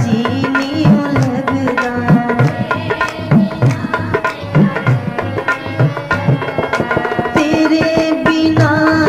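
Instrumental interlude of a devotional bhajan: hand drums keep a steady rhythm with deep, bending bass strokes about twice a second, under a melody of held notes.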